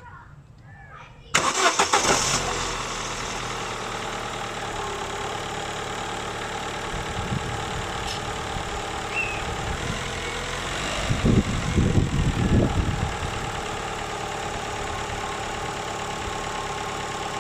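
A 2000 Holden Astra's petrol engine cranks on a freshly charged battery, catches after about a second, and settles into a steady idle. Around eleven to thirteen seconds in it briefly gets louder with a few low pulses. The car is being tested for hard starting and long cranking, which the owner puts down to a faulty crankshaft position sensor.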